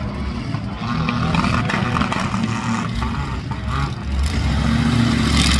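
Monster truck's engine running as it drives across a dirt infield, a steady low rumble that grows louder about four seconds in.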